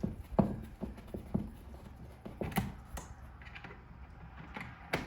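Irregular light clicks and knocks of handling, about eight spread over a few seconds, over a low wind rumble on the microphone.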